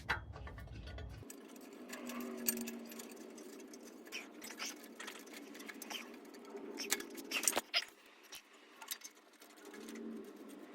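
Scattered metallic clicks and clinks of bolts and nuts being fitted and tightened on an exhaust pipe joint, with a quick run of clicks about seven seconds in.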